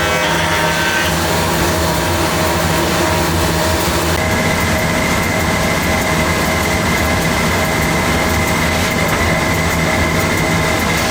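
Woodworking power machine running steadily: an electric motor drone with a steady hum, joined about four seconds in by a high whine.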